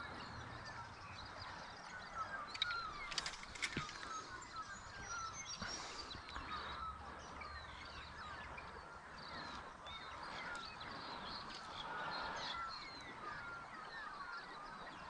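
Several birds chirping over a faint outdoor background, with a few light clicks about three seconds in.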